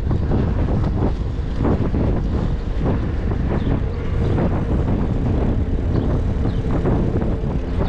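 Wind buffeting the microphone of a camera riding along on a moving bicycle: a loud, steady, low rushing noise.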